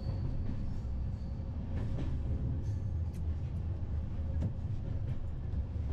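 Passenger train running on the line, heard from inside a coach: a steady low rumble of wheels on rails, with a few faint clicks.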